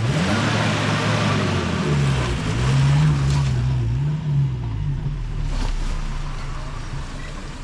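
Maruti Suzuki Gypsy 4×4's engine revving hard under load as it pulls off and climbs a steep dirt mound. The pitch rises at first, then wavers up and down as the engine labours, and the sound fades toward the end.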